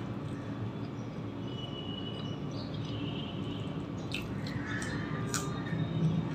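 Quiet hand-eating sounds: soft mouth noises, then a few sharp clicks and crackles in the second half as a paratha is torn by hand and a bite is taken.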